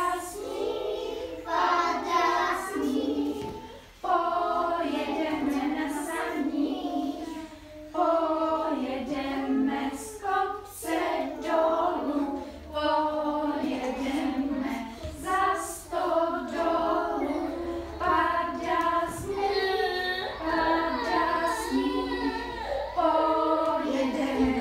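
A group of toddlers singing a song together, led by a woman's singing voice.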